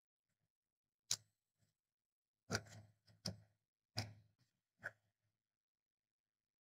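Hot glue gun being handled on a cutting mat: five short, sharp knocks and clicks spread over about four seconds, with near silence between them.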